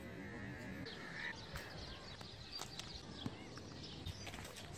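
Faint outdoor background with scattered light clicks and taps, a few faint high chirps, and a short thin tone about a second in.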